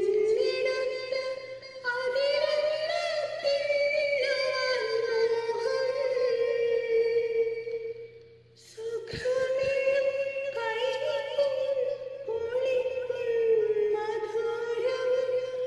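A woman singing a slow song in long, held notes, breaking off for about a second about eight seconds in before going on.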